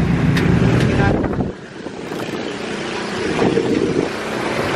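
Owner-type jeep's engine running while driving, with wind noise on the microphone. About one and a half seconds in the low engine sound drops away abruptly, then the level builds back up.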